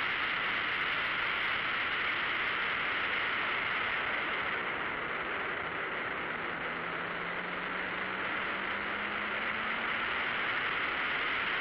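Steady rush of wind and road noise over a track car's onboard camera microphone at speed, the engine only faintly heard beneath it; about six seconds in, the engine's low note rises slowly as the car accelerates out of a corner.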